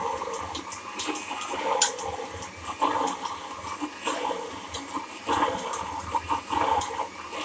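Electric blender running, churning eggs and oil into mayonnaise with an uneven, surging wet sound as the emulsion thickens.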